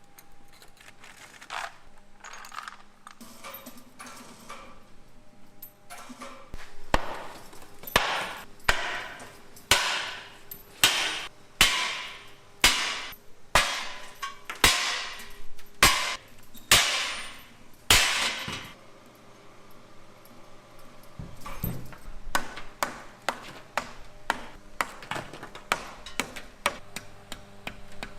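Hammer strikes on a hard workpiece, roughly one or two a second, each with a bright ringing tail, giving way near the end to lighter, quicker taps.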